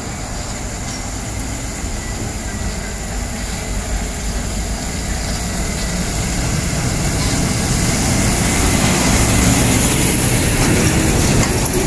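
Diesel engine of a fully loaded sugarcane truck-and-trailer pulling hard up a steep climb, getting steadily louder as it approaches and passes close by near the end.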